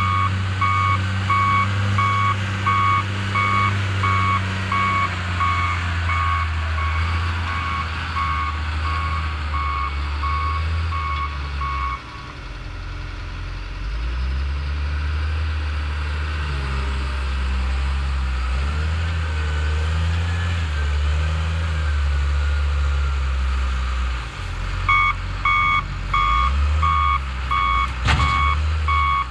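John Deere 624J wheel loader's diesel engine running, with its backup alarm beeping steadily while it reverses for the first twelve seconds or so and again near the end. In between the alarm stops and the engine note rises and falls as the loader works its bucket, and a sharp knock comes shortly before the end.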